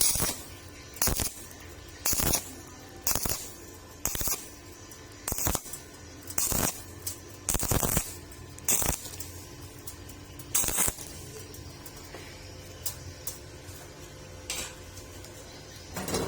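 Stick-welding arc on thin 1.2 mm square steel tube, struck in short crackling bursts about once a second (an on-off stitch of the arc), then stopping after about eleven seconds, leaving only a few faint ticks.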